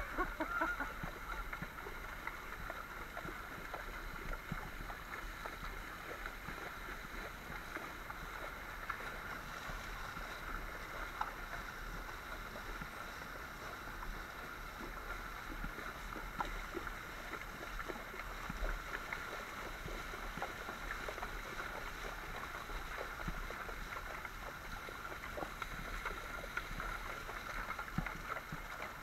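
Horses wading through a river: steady sloshing and splashing of water, with many small scattered splashes.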